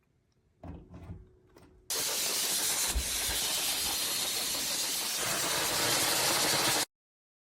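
Steam mop hissing as it lets out steam, starting suddenly about two seconds in and cutting off near the end, after a few soft knocks.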